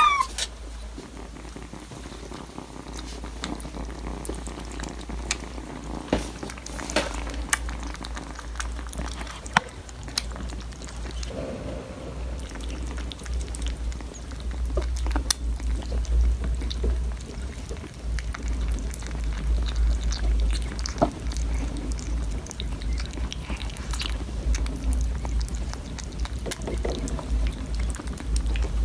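Two kittens eating soft wet cat food from bowls: wet lapping and chewing with many small clicks, over a steady low rumble. A short meow right at the start.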